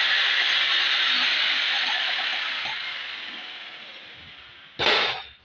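Continuous harsh rattle of a power chipping hammer breaking up old floor tile and mortar, fading away over about four seconds. One short, loud burst of noise comes near the end.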